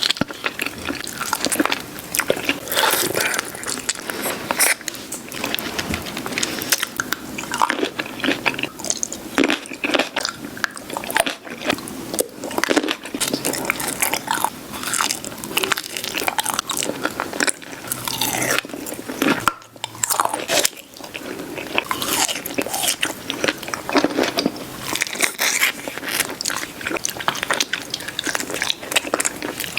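Close-miked biting and chewing of fresh fruit: crisp, wet crunches one after another, briefly dropping out about twenty seconds in.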